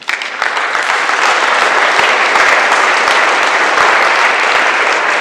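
An audience applauding, breaking out suddenly and holding steady.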